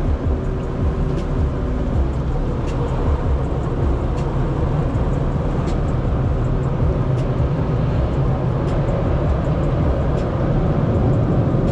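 Steady rumble of an automatic tunnel car wash's machinery heard from inside the car's cabin, with occasional faint ticks.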